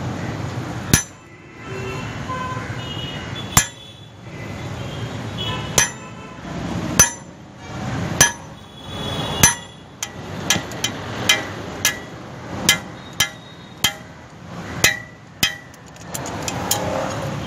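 Hand hammer striking iron on an anvil during blacksmith forging, each blow ringing briefly. The blows come about once a second at first, then quicken to about two a second in the second half.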